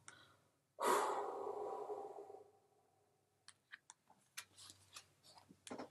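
A woman's long breath blown out through pursed lips, a loud sigh that starts about a second in and fades away over a second and a half: the out-breath that releases held muscle tension in a relaxation exercise. Faint scattered clicks and a short rustle follow near the end.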